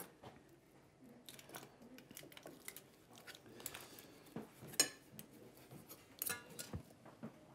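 Faint, scattered knocks and clinks of kitchen utensils: a knife and fork cutting cooked meat on a wooden cutting board, and a spoon against plates. The loudest knock comes about five seconds in.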